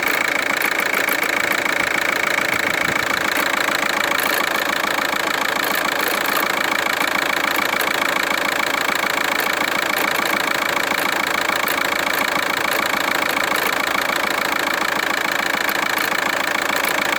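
A machine, most like an engine at idle, running steadily with a fast, even rattling texture and a strong high-pitched hum; the noise is taken for an odd one.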